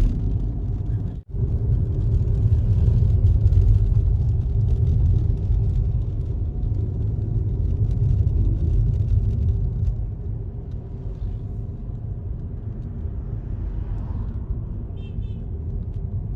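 Steady low rumble of engine and road noise from a car driving, heard from inside the cabin. There is a very brief cut-out about a second in, and the sound eases somewhat after about ten seconds.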